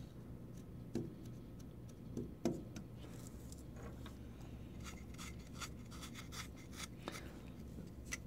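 Quiet handling noise of a 3D-printed model being dipped into baking soda on aluminium foil: soft knocks about a second in and again around two and a half seconds, then a run of faint clicks, over a low steady hum.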